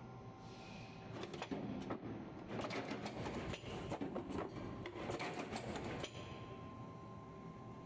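DK390A shoe-box finger-hole riveting machine running a cycle on its pneumatic cylinders: a short hiss of air, a few clicks, then several seconds of rapid mechanical clicking and clattering that stops about six seconds in, over a faint steady tone.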